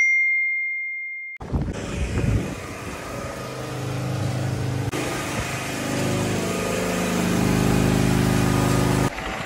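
A high electronic beep lasting about a second and a half, then a car engine running steadily, a little louder in the second half, stopping abruptly near the end.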